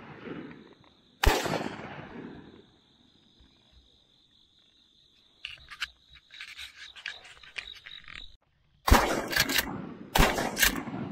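Shotgun shots at doves: one blast about a second in, then two more about a second apart near the end, with light clicking and handling noises between them.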